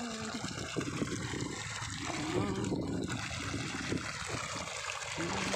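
River water pumped through a white plastic pipe, gushing out and splashing steadily into a pool.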